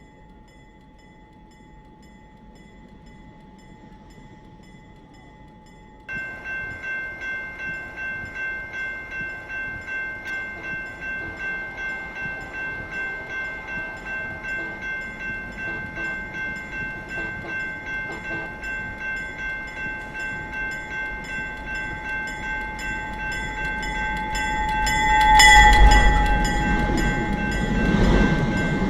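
A train approaching. A warning bell starts ringing suddenly about six seconds in, about two strikes a second. Near the end the train's horn sounds and the rumble of the train swells loud.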